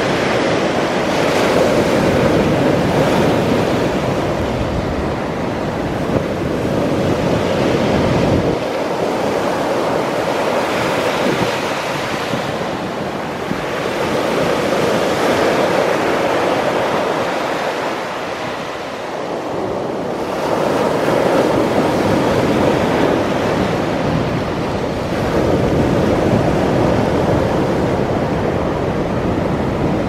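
Sea surf breaking and washing up the shore, swelling and easing every few seconds as each wave comes in. Wind buffets the microphone at times, adding a low rumble.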